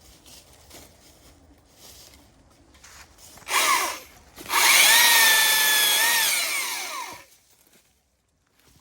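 Stihl MSA 300 battery chainsaw: a short blip of the trigger about three and a half seconds in, then a run of about two and a half seconds with a steady high electric whine that winds down in pitch as the trigger is released.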